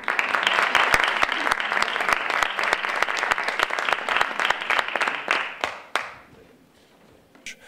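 Audience applauding. It starts abruptly and dies away about six seconds in.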